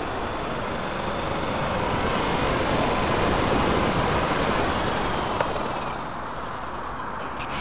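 Small radio-controlled helicopter's rotor and motor whirring as it flies low toward the camera, with a faint wavering whine over a steady hiss. It grows louder as the helicopter comes close, then eases as it sets down on the asphalt, with one light tap about five seconds in.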